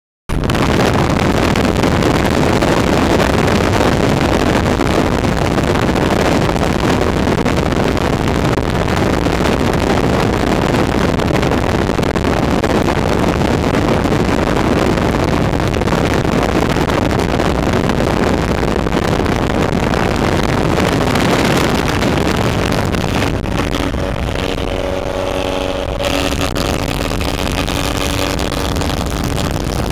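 Steady rush of wind and road noise at highway speed, heard from inside a moving car. A few steady tones join it about three-quarters of the way through.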